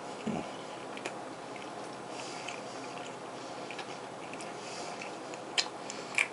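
Faint chewing of a mouthful of fried popcorn chicken, with scattered soft mouth clicks and two sharper clicks near the end.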